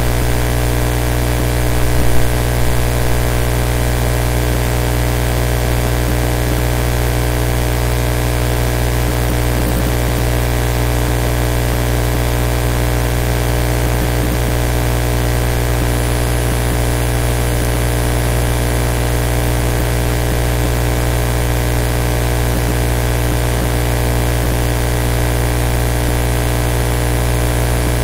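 Steady, unchanging electrical hum with hiss, made of many fixed tones. A few brief louder bumps come about two to three seconds in.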